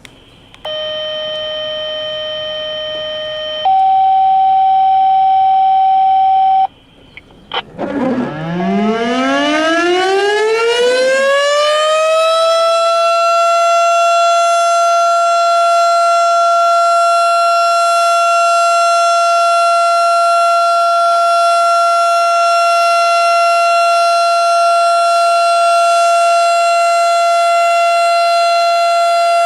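Two long steady tones, one after the other, the second louder. Then a tornado warning siren winds up from a low growl, rising in pitch over about four seconds, and settles into one loud, steady wail that holds.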